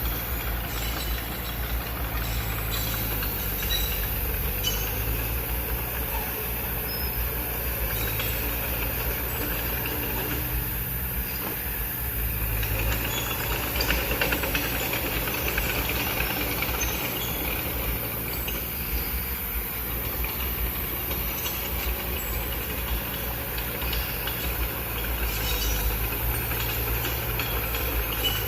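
Mitsubishi BD2F crawler bulldozer at work, its diesel engine running steadily with a low rumble, the noise growing louder and brighter for a few seconds around the middle.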